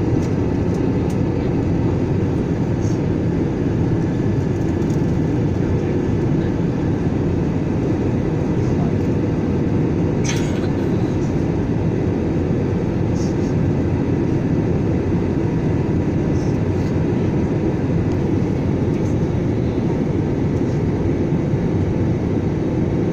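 Airliner cabin noise: the turbofan engines and rushing air make a steady low rumble with a faint, even whine over it. There is a brief click about ten seconds in.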